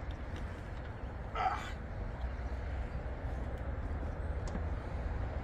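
A steady low background rumble, with one short animal call, like a bark, about a second and a half in.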